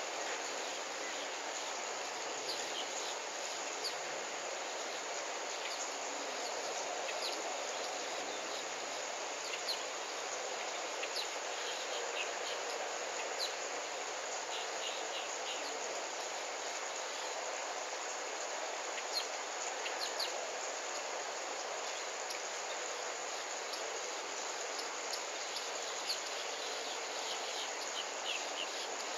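Steady outdoor insect chorus of crickets, with short high chirps scattered every second or two.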